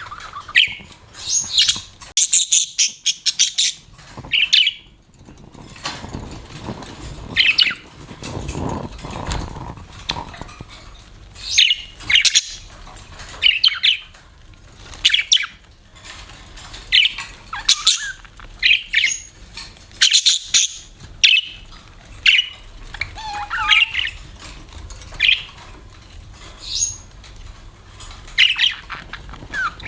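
Budgerigars chirping and chattering in short, high bursts every second or two, with a low rustling noise about eight seconds in.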